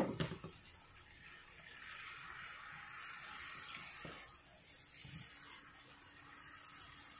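Wet spice masala sizzling in a frying pan, a hissing that swells and fades as it is stirred with a silicone spatula; the masala is being fried down with a little water added. A short knock right at the start.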